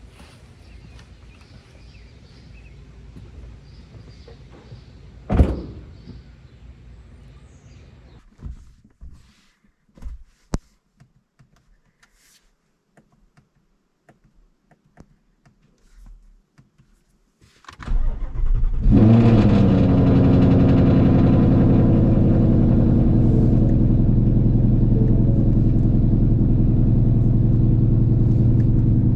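A single thump about five seconds in, a few light clicks, then quiet. About eighteen seconds in, the 2019 Ford Mustang GT's 5.0-litre V8 starts with a brief flare of revs and settles into a steady, loud idle through Kooks headers and a Borla ATAK cat-back exhaust.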